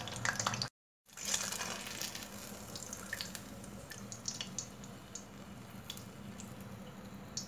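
Banana fritter deep-frying in hot oil: a steady sizzling hiss with a few light clicks of a metal slotted spoon, cut off by a brief silent gap just under a second in and then fading slowly.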